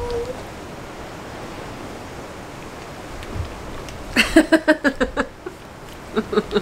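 A steady background hiss, then, about four seconds in, a short burst of laughter with quick even pulses, and a few brief voice sounds near the end.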